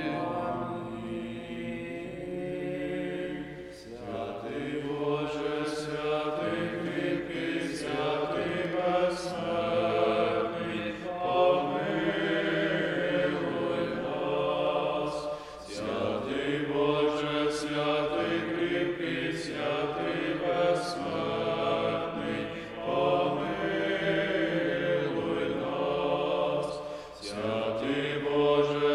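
Group of men's voices chanting a Byzantine-rite memorial-service (panakhyda) hymn. It goes in long sustained phrases with brief pauses about four, fifteen and twenty-seven seconds in.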